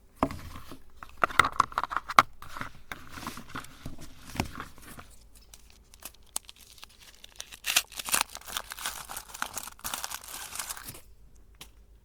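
A chocolate bar's wrapper being torn open and crinkled, in irregular rustling spells, with a denser spell of crinkling near the end that stops abruptly.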